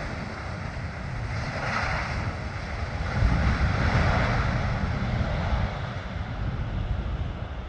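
Jet engines of an Emirates Boeing 777 rumbling as it rolls along the runway, heard at a distance with heavy wind buffeting the microphone; the noise swells about three seconds in.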